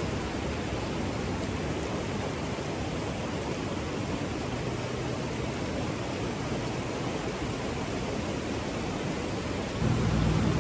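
Steady rushing of a shallow river running over rocks. Near the end a louder low rumble comes in over it.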